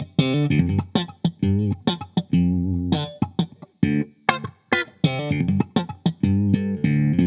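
Fender Stratocaster electric guitar played slap-style in a funk groove in D Dorian. Sharp dry thumb slaps on the low sixth string, tuned down a tone to D, alternate with muted percussive ghost notes and short chord stabs, with some notes left ringing briefly.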